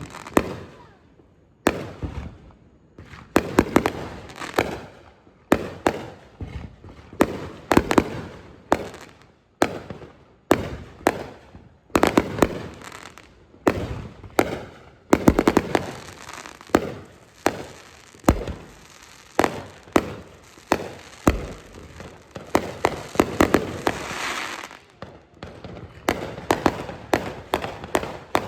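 Fireworks display: aerial shells booming one after another, each bang trailing off in echo and crackle, with quick clusters of pops in places.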